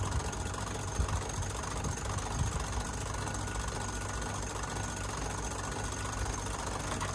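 Electric winch motor running steadily under load, hauling in the davit line to lift the dinghy out of the water.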